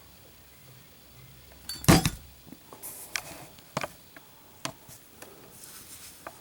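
Zippo lighter put through a drop test: one loud sharp metal clack about two seconds in, followed by a few lighter clicks and taps as it is handled.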